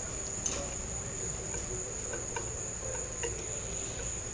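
Crickets chirping in a steady high-pitched chorus, with faint scattered clicks.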